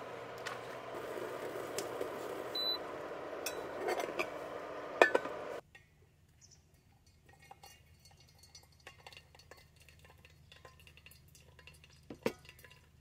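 Water heating in a lidded stainless steel pot on a portable induction cooktop: a steady hiss, with a short beep about two and a half seconds in and a few metal clicks and clinks. About five and a half seconds in the hiss cuts off suddenly, leaving only faint small sounds of hot water being poured into a drip-bag coffee filter in a steel mug.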